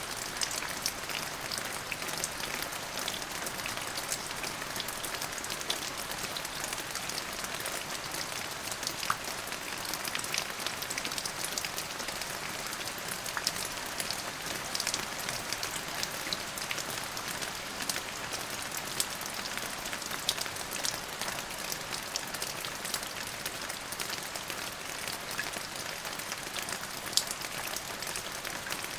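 Steady rain falling on a surface, a constant hiss with many individual drops pattering and a few louder drops standing out.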